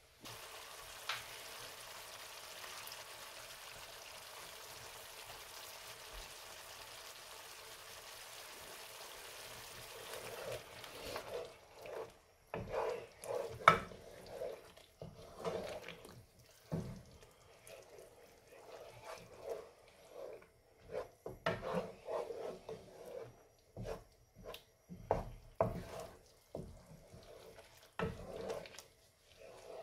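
Chilli and tomato sauce sizzling in a frying pan with a steady hiss for about the first eleven seconds. Then the hiss drops away and a wooden spoon stirs and scrapes through the thick sauce in short irregular strokes, with a sharp knock against the pan about fourteen seconds in.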